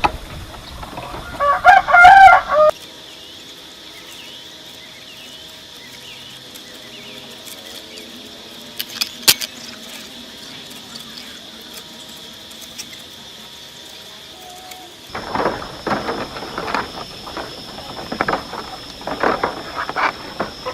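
A rooster crowing, a loud wavering call that ends about two and a half seconds in. It is followed by a quieter stretch with a steady high tone and a single sharp click, and then, from about fifteen seconds in, a run of irregular rough strokes.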